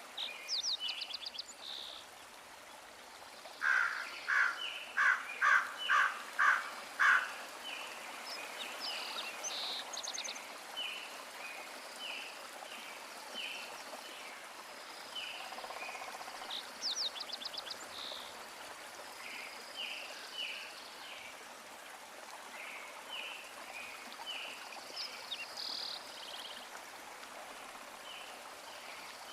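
Birds chirping repeatedly over a steady hiss, with a run of six louder calls, about two a second, a few seconds in.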